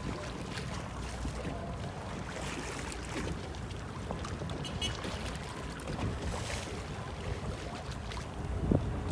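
Waterside ambience: harbour water lapping against the quay, with wind rumbling on the microphone.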